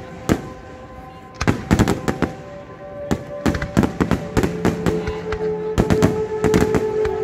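Fireworks display: aerial shells bursting in rapid succession, a string of sharp bangs and crackles. The bangs are sparse at first and come thick and fast from about a second and a half in.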